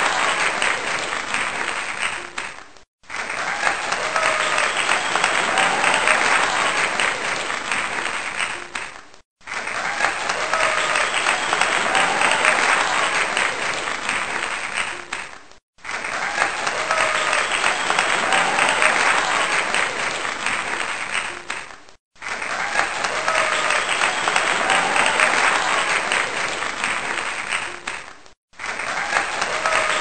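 Audience applause, a dense clapping crowd, looped as a clip of about six seconds. Each time it fades, breaks off for a moment and starts again at full strength, five times in all.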